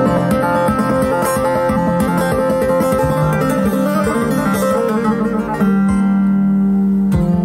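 Three-string Turkish saz (üç telli bağlama) played with quick plucked runs of notes. About five and a half seconds in it holds one long low note, and picking resumes near the end.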